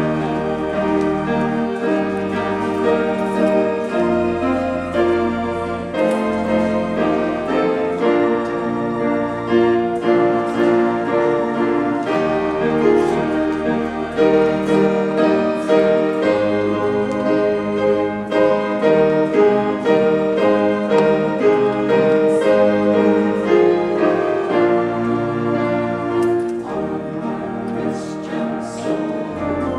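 Piano and organ playing a slow instrumental piece: sustained chords over long-held bass notes.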